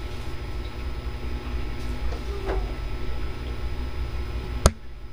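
Steady low background rumble, with one sharp click near the end.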